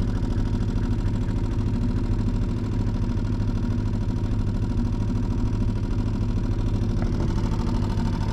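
Small single-cylinder four-stroke outboard motor, a Mercury F3.5, running steadily and pushing an inflatable boat along.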